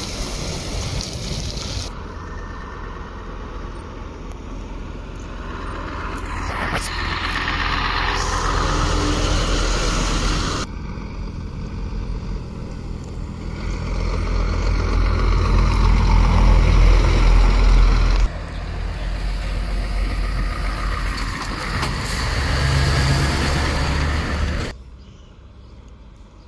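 Heavy lorry diesel engines running and pulling past, with a deep rumble that builds in each of several short stretches which cut abruptly one into the next.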